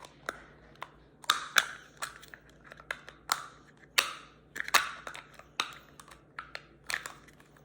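Plastic toy and wrapper being handled close up: irregular sharp clicks with short crinkling rustles, a few seconds apart.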